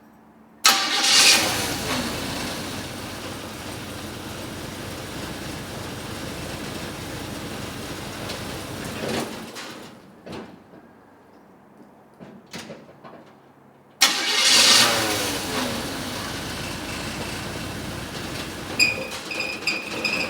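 A 1953 GMC 100 pickup's engine catches and settles into a steady run, its revs falling after it fires. It stops about nine seconds in, then fires and settles the same way again about fourteen seconds in. A few short high-pitched chirps come near the end.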